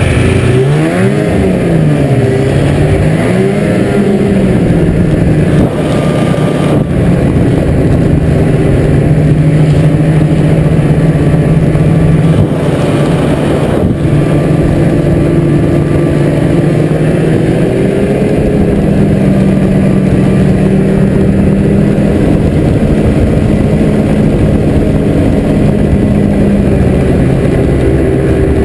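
Ski-Doo MXZ 800X snowmobile's two-stroke engine running under way, the revs rising and falling a few times at first, then holding fairly steady at speed.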